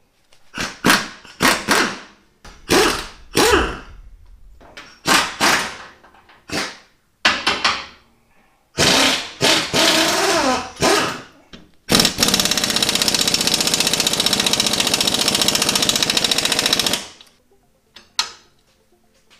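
Impact wrench removing the rear shock absorber nuts: a string of short trigger bursts, then longer runs with the pitch bending, and about five seconds of continuous hammering from roughly twelve seconds in that stops abruptly.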